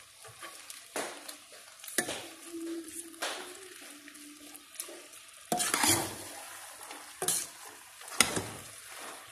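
Thick menudo stew being stirred in a stainless steel pot, a utensil scraping and knocking against the pot several times at uneven intervals, with the stew bubbling at a simmer underneath.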